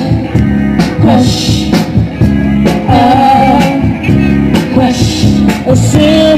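A band playing the intro of a pop song: a steady drum beat and pulsing bass under a melody line.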